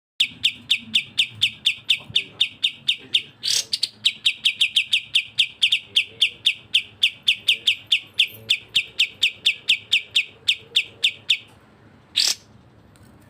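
Bulbul song used as a training recording: a fast rapid-fire string of short, sharp down-slurred whistled notes, about five a second, broken once by a louder call. The string stops about two-thirds of the way through, and one more loud call follows.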